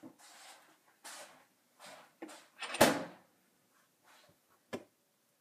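Kitchen handling noises: short rustles and light knocks, with one sharp knock nearly three seconds in, the loudest sound, and a smaller click near the end.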